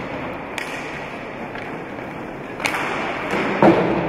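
Rink hockey play echoing in a sports hall: sharp clacks of sticks and ball about half a second and two and a half seconds in, over steady hall noise, then a loud thud about three and a half seconds in.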